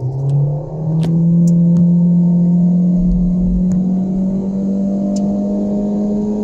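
Four-cylinder car engine held at high revs under hard acceleration, heard from inside the cabin: a steady drone whose pitch climbs slowly and evenly. A brief low thump comes about three seconds in.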